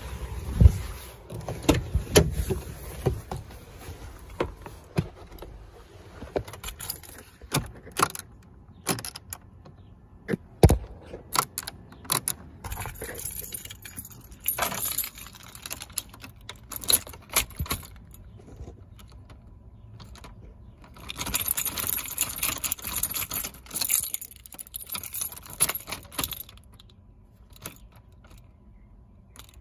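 Keys jangling on a key ring with repeated clicks as the ignition key is turned in a 2001 Ford Expedition's ignition switch, with no engine cranking: the truck has no power, a dead battery.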